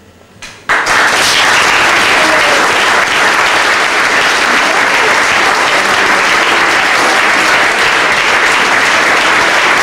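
Audience applause, breaking out suddenly less than a second in and then continuing steadily.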